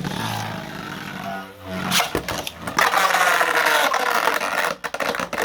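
3D-printed Beyblade spinning tops whirring and scraping around a stadium floor just after launch, with a sharp click about two seconds in.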